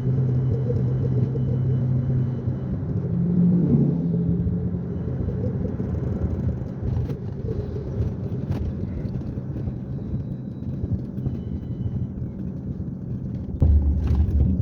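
Car on the move: steady engine and road rumble, with a short rise in engine pitch a few seconds in and a sudden, louder low rumble near the end.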